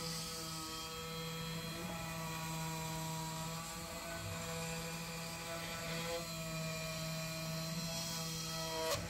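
Vevor 3018 desktop CNC router cutting 5.5 mm acrylic: the spindle motor's steady whine, with the pitch shifting slightly as the end mill feeds along the cut. A sharp click comes near the end.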